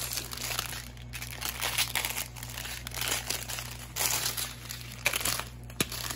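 A strip of clear plastic bags of diamond-painting drills crinkling as it is handled and turned over, in irregular crackles, with one sharp click near the end.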